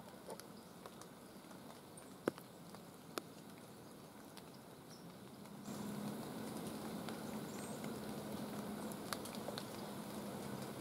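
Quiet woods with faint light pattering and a few sharp clicks. About halfway through, a steady low hum with hiss comes in suddenly and carries on.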